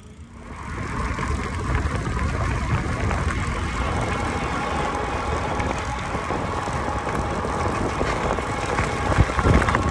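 A fat-tire e-bike's Bafang 750 W rear hub motor whining steadily under steady rumble from the wheels and tyres, heard close to the frame while riding on pavement. The sound comes in about half a second in, with a couple of knocks near the end.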